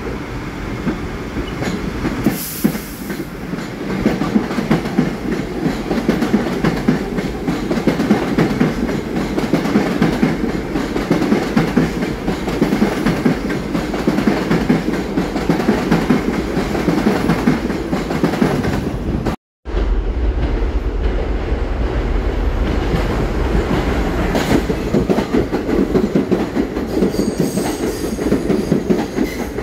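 R62A subway train on the 1 line running past the platform: a loud, steady rumble and the fast clatter of steel wheels over rail joints as the cars go by. The sound cuts out for a split second about two-thirds through.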